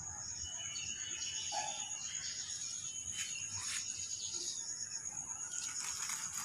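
Outdoor ambience: a steady high-pitched insect drone with a few faint, short bird chirps.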